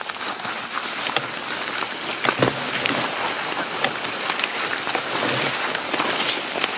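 Footsteps through dry leaves and brush, with a ghillie suit rustling against the undergrowth: a continuous crackle of many small snaps.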